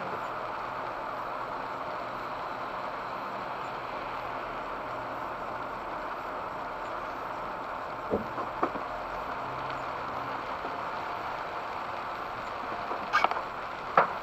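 Steady road and rain noise heard inside a moving car on a wet road, with a few short sharp clicks about two thirds of the way through and again near the end.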